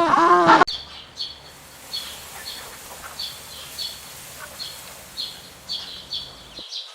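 A small bird chirping: about a dozen short, high chirps at uneven intervals over a faint outdoor background. At the very start the loud, wavering end of another animal's call is heard, and it cuts off suddenly.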